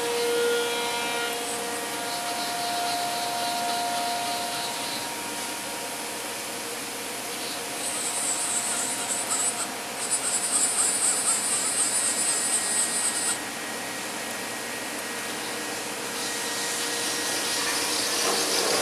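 DMS 5-axis CNC router running with a steady whirring hum and a few held tones at first. A rapid, high-pitched rhythmic chatter comes in about eight seconds in and stops about five seconds later.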